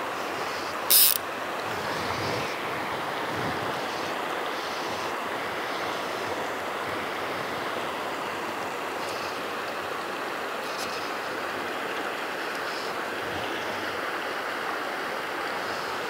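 Steady rush of flowing river water, with one short, loud hiss about a second in.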